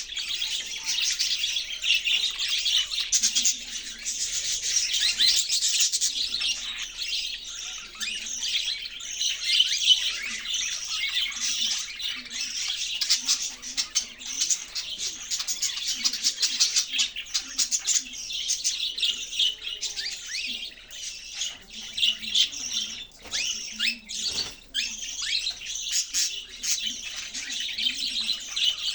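Several budgerigars (budgies) chirping and warbling nonstop, with many quick high chirps overlapping one another.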